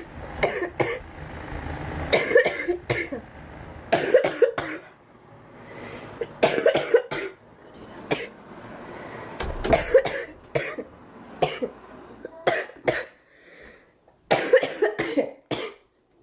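A young woman coughing in repeated short fits, a burst every one to three seconds with breathy inhalations between; she calls it a smoker's cough.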